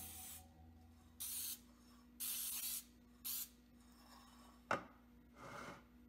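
Aerosol can of nonstick baking spray hissing in four short bursts as a glass loaf pan is coated, followed by one sharp knock and a brief rub near the end as the pan is set down on the stone countertop.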